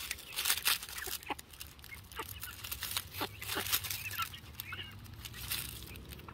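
Several backyard hens pecking black soldier fly larvae off concrete: many quick, sharp taps of beaks on the slab, with a few short clucks.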